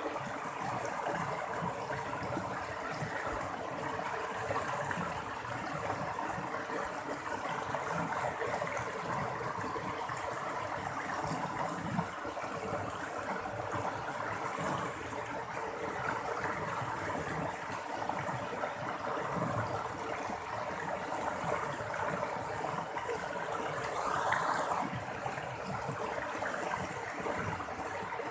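Running water babbling and splashing steadily, with a slightly louder splash near the end.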